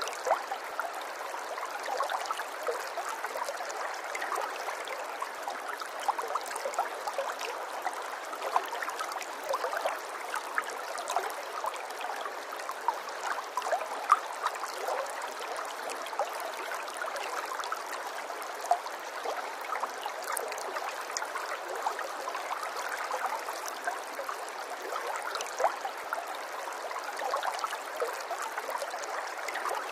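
Running water trickling and babbling steadily, full of small splashes and plinks, like a shallow stream.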